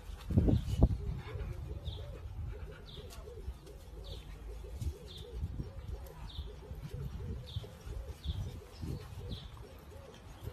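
A bird chirps over and over, a short high note about every two-thirds of a second, over a low wavering cooing sound. A few dull thumps come in the first second.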